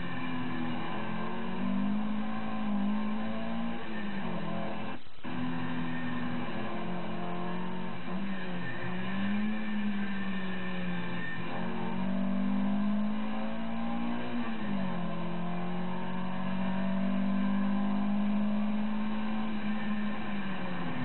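A Celica 2T-G 1.6-litre twin-cam four-cylinder engine in a Starlet track car, heard from inside the car while driven hard on circuit. The revs climb and then drop sharply several times, as at gear changes and lifts. The sound breaks off very briefly about five seconds in.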